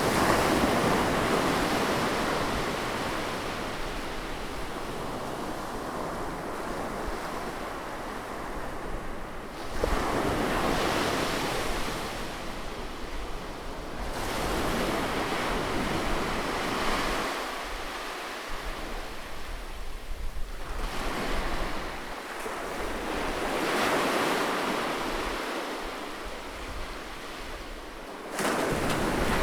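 Sea waves breaking close on a shore, each one surging in loudly and then washing back, coming every few seconds.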